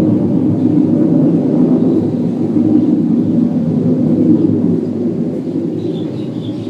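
Loud, steady low droning rumble coming from the sky, made of several steady low tones. It sounds like an airplane passing high overhead, but the recordist doesn't think it comes from an airplane.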